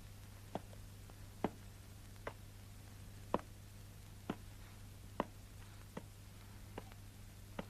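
Slow, even footsteps: sharp single clicks about once a second, over a steady low hum.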